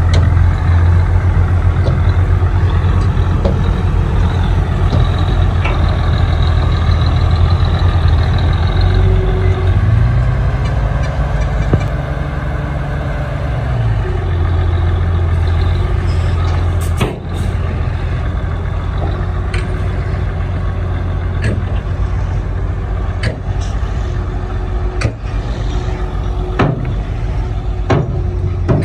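Heavy construction vehicle's diesel engine running steadily, its pitch rising for a few seconds about ten seconds in as it works harder, then settling back. Scattered sharp knocks sound over it in the second half.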